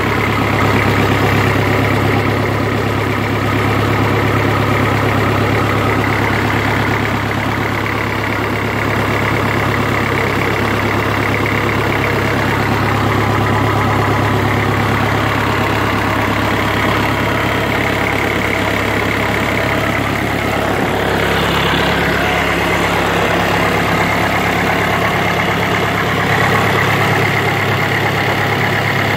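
Mitsubishi S4S four-cylinder diesel engine idling steadily after a full rebuild.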